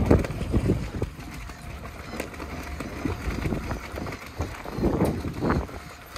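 Wind buffeting the microphone in gusts, a low rumbling noise that swells near the start and again about five seconds in.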